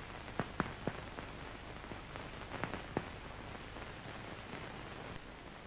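Surface hiss and irregular crackles and clicks of an old 1930s optical film soundtrack. A faint, steady high whine comes in near the end.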